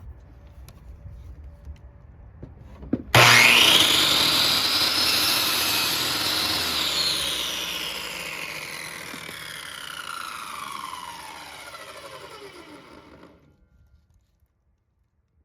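Electric power saw switched on: the whine climbs sharply within about a second, then the blade winds down, its pitch falling slowly over about nine seconds until it dies away.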